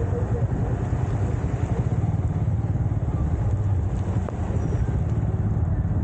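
Motorcycle engine running steadily while riding, a dense low rumble with no change in pace.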